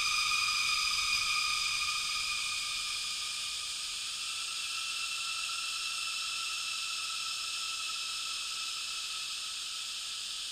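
Cicada call recording processed into a horror ambience: washed in heavy reverb so it becomes a sustained, eerie layered drone of high tones. It steps up slightly in pitch about four seconds in.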